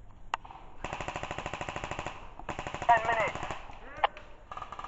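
Airsoft gun firing two full-auto bursts, about a second and a half and then about a second long, each a fast even run of shots, with single shots before and after.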